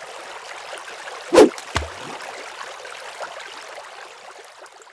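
Intro sound effect of steadily running water, with one loud sudden hit about a second and a half in and a smaller low thud just after, fading out near the end.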